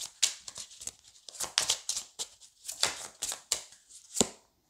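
A deck of Lenormand oracle cards shuffled by hand, a run of short, irregular swishing strokes as packets of cards are slid through the hands, ending with one sharp click near the end.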